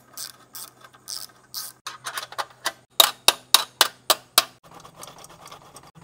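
Hand tool clicking as the stock exhaust of a BMW R 1300 GS is unbolted, with a quick run of about six clicks, roughly three a second, in the middle. A faint steady hum underneath.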